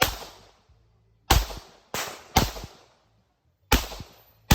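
A string of six pistol shots fired at an uneven pace, each a sharp crack with a short ringing tail.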